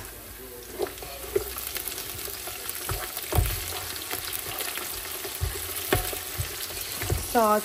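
Browned onions with whole spices and freshly added garlic and ginger sizzling in a pot, stirred with a spoon that knocks against the pot now and then.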